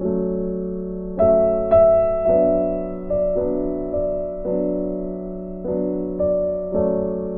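Slow, gentle background music on electric piano, sustained notes and chords struck about once a second and left to die away.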